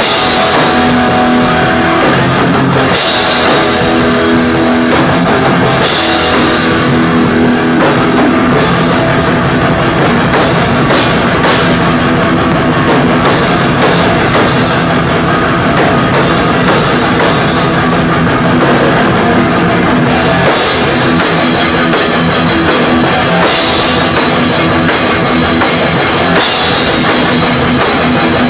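Live thrash metal played loud by a full band: fast, dense drumming on a drum kit with cymbal crashes under distorted electric guitars.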